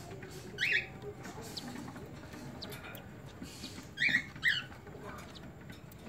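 Three short, squeaky cockatiel chirps: one about half a second in, and two close together about four seconds in.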